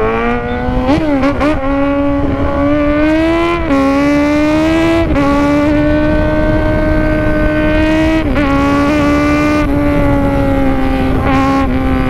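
Kawasaki Z1000's inline-four engine running at high revs under way, its steady high pitch climbing in small steps over the first five seconds, dipping briefly about eight seconds in, then easing slowly down. Wind rumble on the microphone underneath.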